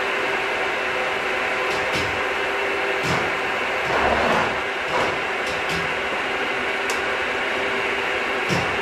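Metal milling machine running steadily with a steady hum, with scattered sharp clicks and a louder rough stretch about four seconds in.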